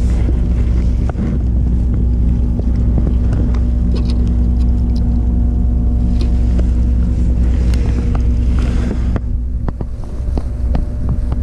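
Electric trolling motor humming steadily, with scattered knocks and clicks of gear being handled in the boat.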